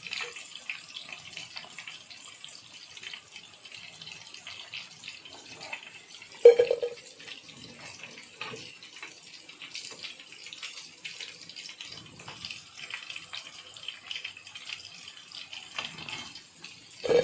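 Marinated chicken 65 pieces deep-frying in hot oil in a kadai, a steady sizzling and crackling, the pieces already crisp. A single loud knock about six and a half seconds in.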